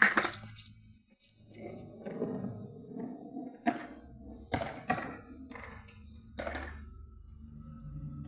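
Quiet background music with four sharp thuds or knocks in the middle, the last two close together.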